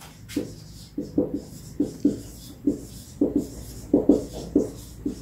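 Dry-erase marker writing on a whiteboard: an irregular run of short strokes as words are written out by hand.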